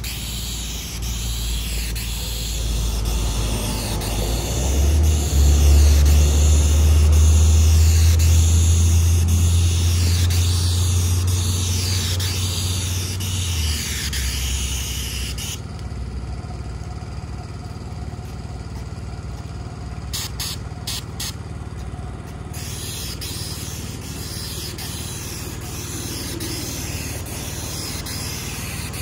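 Asphalt sealer hissing steadily from a hand spray wand onto a driveway, the hiss stopping for several seconds about halfway through, with a few clicks, before starting again. A low engine rumble swells in the first half and is the loudest sound for several seconds before fading.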